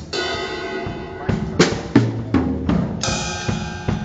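Drum kit being played: snare and tom hits with low ringing decays, over cymbals that keep ringing, and a cymbal crash about three seconds in.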